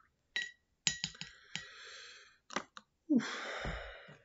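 A spoon clinking against a ceramic mug while stirring tea: several sharp clinks with a short ringing tone in the first two seconds, then a few lighter taps. Near the end there is a breathy sigh lasting about a second.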